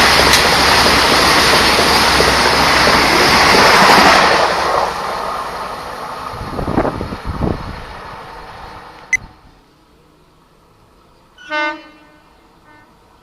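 A train passing close by at speed: a loud rushing rumble of wheels on rail for about four seconds, which fades away over the next five as it recedes. A short horn honk sounds near the end.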